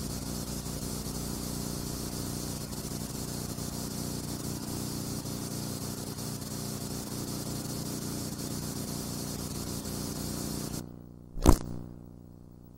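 Steady hiss with a low hum: the background noise of a silent film's soundtrack, with no other sound. It drops away just before 11 seconds, and about half a second later a single sharp, loud click follows.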